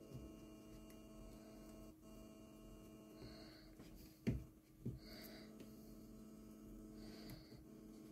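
Steady electrical mains hum, with two sharp knocks about four and five seconds in as the oak slats of a wooden wall clock are shifted by hand.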